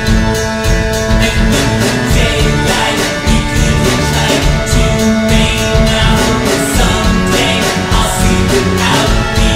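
Background music: a country-style song with guitar and a steady beat.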